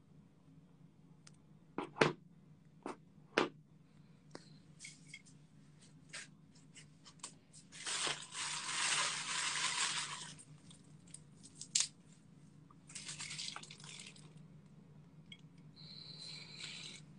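Faint handling noises at a counter: scattered clicks and taps, with a couple of seconds of rustling or hissing about eight seconds in and shorter stretches of it later.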